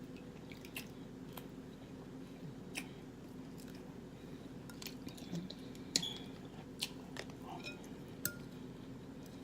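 A person chewing and biting food from a seafood boil close to the microphone, with scattered wet smacks and sharp little clicks, over a faint steady hum.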